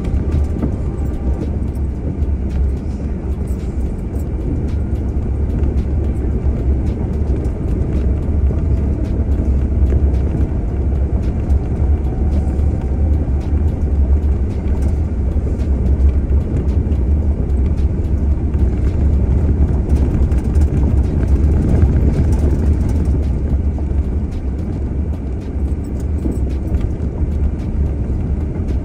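Off-road vehicle driving along a dirt forest track: a steady low rumble of engine and tyres, with scattered small knocks and rattles from the rough road.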